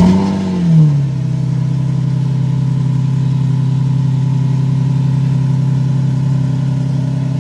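Lamborghini Murciélago V12 with a Fabspeed aftermarket exhaust starting up: it catches, flares in a brief rise of revs within the first second, then settles to a steady idle.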